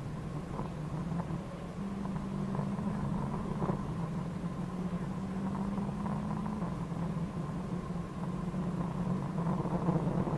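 Rally car's engine running hard, heard from inside the stripped cabin, with road rumble underneath. The engine note steps up about two seconds in and eases back after about six and a half seconds.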